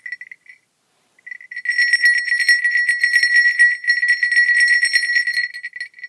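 A six-petal crotal (sleigh) bell about 2 inches across, shaken by hand and jingling rapidly for about four and a half seconds, starting about a second in, with a clear steady ringing tone.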